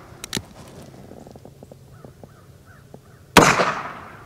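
A Colt Frontier Scout .22 LR single-action revolver: a couple of small clicks about a third of a second in, then a single shot about three and a half seconds in, with a ringing tail that fades out over most of a second.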